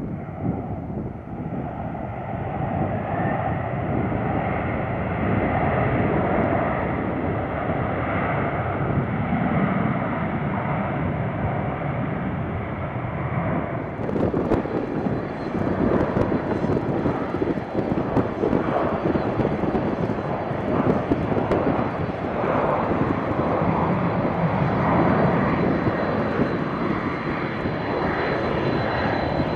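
Boeing 747's four jet engines: a steady rumbling roar as the jumbo jet rolls out after touchdown. About halfway through there is an abrupt change to the engines at taxi power, with a steady high whine over the roar.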